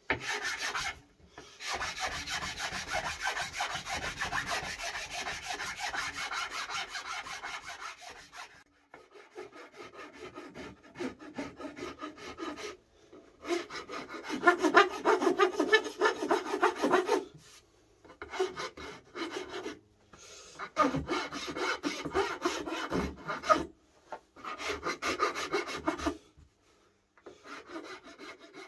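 Hand rasp cutting the arm carve into a solid wood guitar body: fast scraping strokes over the wood in bouts of a few seconds, with short pauses between. The longest bout comes first, and the others are shorter.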